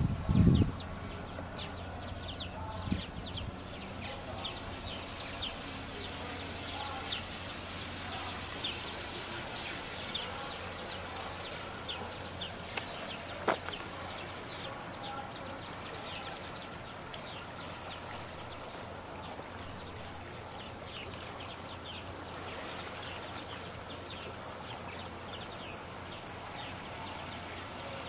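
Many birds chirping and calling in quick, short high notes, over a steady outdoor hiss. A couple of dull thumps come right at the start, and a single sharp click about halfway through.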